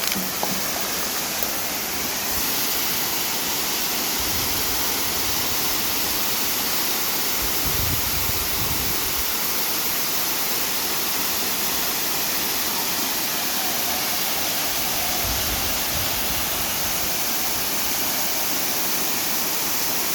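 Waterfall: a steady, even rush of falling water, with a few brief low rumbles about four, eight and fifteen seconds in.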